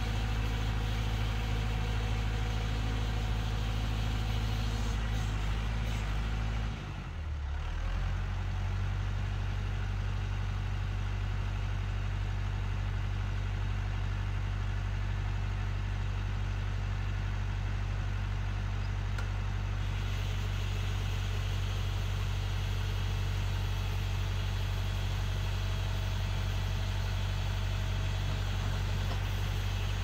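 Perkins diesel engine of a Massey Ferguson 50E backhoe running steadily, its note dipping and shifting briefly about seven seconds in.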